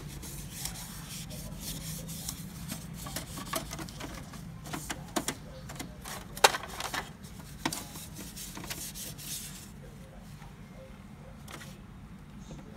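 Plastic of an opened laser printer and its toner cartridge rubbing and scraping, with many sharp clicks and one loud click a little past halfway, as the parts are handled. Quieter near the end.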